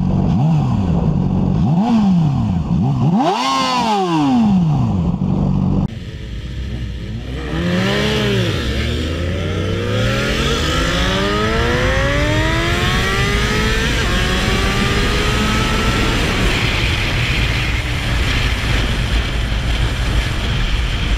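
A parked sport motorcycle revved three times with the throttle, the third rev the highest. After a cut, a motorcycle accelerates hard up through the gears, its pitch climbing again with each gear. It then settles into steady riding with wind noise.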